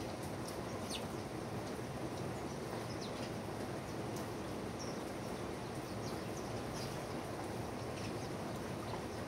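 Small birds giving short, high chirps, scattered irregularly over a steady outdoor background noise.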